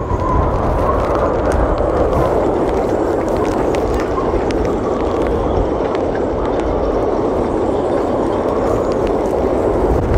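Storm-force wind gusting across a marina pontoon: a steady loud racket of wind, with low rumbling buffeting on the microphone.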